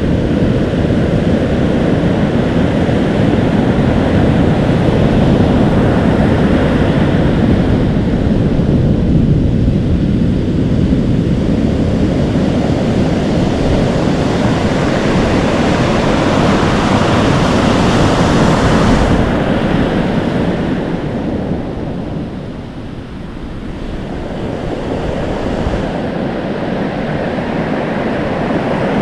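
Atlantic Ocean surf washing in and foaming, with wind buffeting the microphone. The rush of water swells to a peak, eases off about three-quarters of the way through, then builds again.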